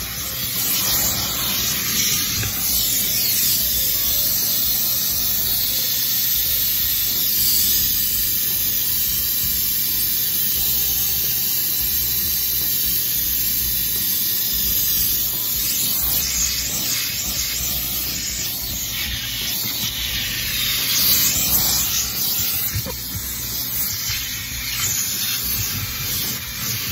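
HART 10-gallon wet/dry shop vacuum running steadily with a hissing rush of air as its nozzle sucks at the car's floor carpet.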